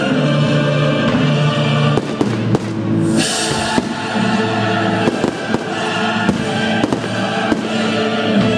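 Fireworks going off over loud show music. For the first two seconds only the music is heard. Then come sharp bangs, singly and in quick runs, with a short burst of crackle a little after three seconds in.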